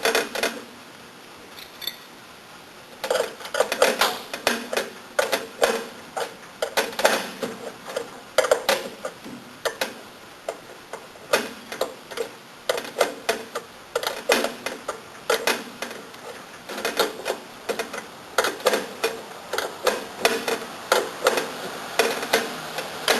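Irregular clicks and light metal taps in quick clusters, from a wrench and hands working on compression fittings as tubing lines are tightened into valves. The clicking starts about three seconds in, after a short quiet stretch.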